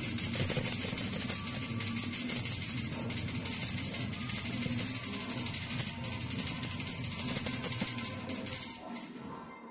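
Small brass puja hand bell rung rapidly and without a break, a bright steady ringing that fades out about nine seconds in.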